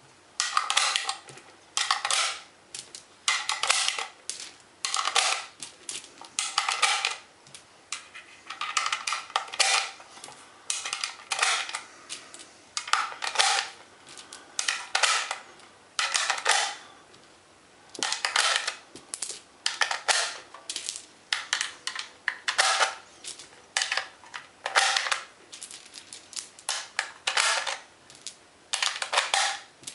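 Cartridges being pressed one at a time into a 30-round AK-47 magazine, each round clicking as it snaps past the feed lips. The clicks come in a steady run, about one or two a second, with a brief pause about halfway through.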